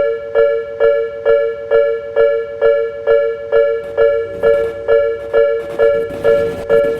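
Level-crossing warning alarm of the Japanese fumikiri type: an electronic two-tone ding, repeating evenly about twice a second. In the second half a train passes, adding a rushing, rattling noise under the dinging.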